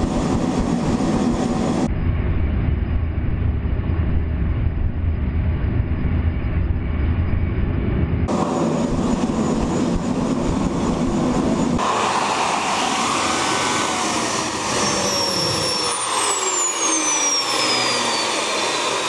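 Homemade kerosene-fuelled turbojet engine running loud and steady at full power on a thrust stand. In the last few seconds a high whine falls steadily in pitch as the turbine spools down.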